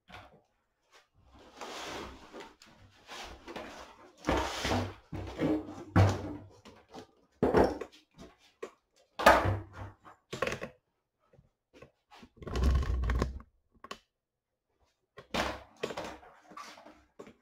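Sheet-metal LED backlight tray of an LG 42LN540V TV being handled and laid flat on a foam-covered board: a string of irregular clunks and rustles, the heaviest knock about nine seconds in, and a low rumble lasting about a second near thirteen seconds.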